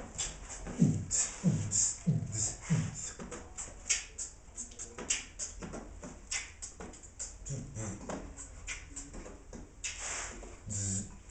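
A person beatboxing: a quick rhythm of hissing hi-hat and snare sounds made with the mouth, over deep bass kicks that drop in pitch, four of them in the first three seconds.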